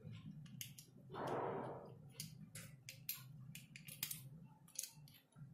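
Small sharp plastic clicks and scrapes as the parts of a 20 A SPN switch are pushed and worked together by hand to snap the cover on, with one louder rasp lasting about a second, beginning about a second in.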